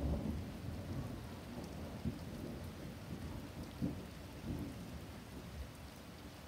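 A long roll of thunder that starts suddenly, with sharper peaks about two and four seconds in, then dies away near the end. Steady rain falls underneath.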